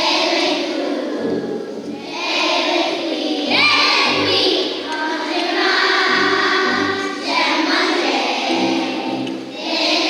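A group of young children singing a French song about fruits and vegetables together, over a musical accompaniment with a low bass line.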